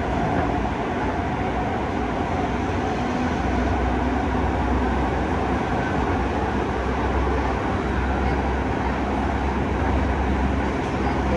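New York City subway L train car in motion, heard from inside the car: a steady rumble and rush of wheels on rails. The low rumble grows a little stronger about three seconds in.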